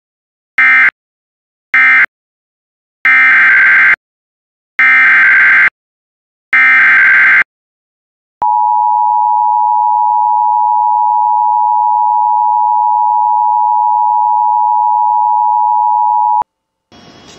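Emergency Alert System data tones: the end of three short end-of-message bursts, then three longer SAME header bursts that open a new alert, then the two-tone attention signal held steady for about eight seconds and cut off abruptly.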